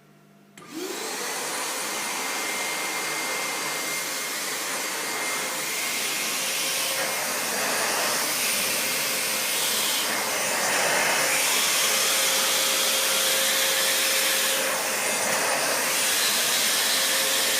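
Lavor Pro GBP 20 washing vacuum cleaner switched on about half a second in, its motor spinning up with a rising whine and then running steadily with a loud suction rush. The sound shifts a little every few seconds.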